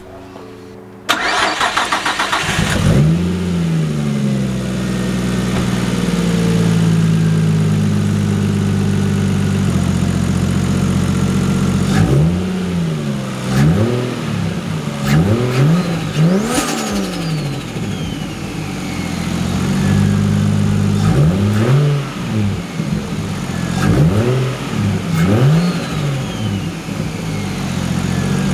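Nissan Skyline R34's straight-six cranked on the starter, catching about three seconds in, then idling with repeated short throttle blips, a high falling whistle trailing some of them. It is the first start after the ignition coil packs were refitted to chase a misfire.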